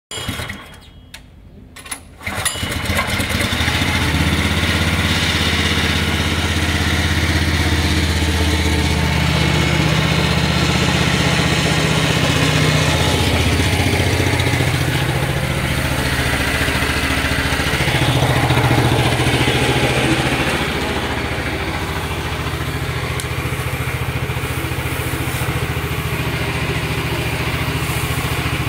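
Small engine on a bitumen sprayer starting about two seconds in, then running steadily with small rises and falls in speed.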